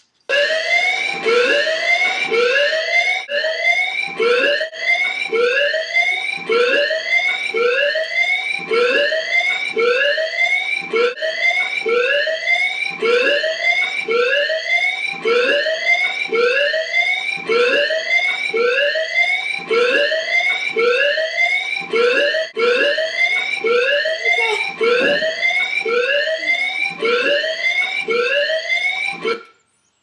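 Fire-alarm siren going off loud, a rising electronic whoop repeated over and over, a little faster than once a second. It starts suddenly and cuts off about a second before the end.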